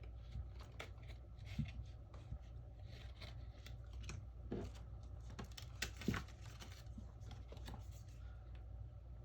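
Scattered small clicks, scrapes and crackles as the cracked back glass of a Samsung Galaxy Note 10+ is pried away from its adhesive, over a steady low hum.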